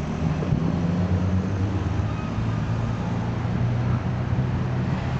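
Street traffic below a balcony: a motor vehicle's engine running with a low, steady hum over the general noise of the road.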